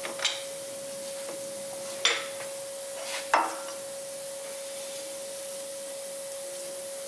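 Three sharp metal clicks, the last the loudest, as a bearing shell is handled and set into a Volkswagen five-cylinder main bearing cap. A steady high hum runs underneath.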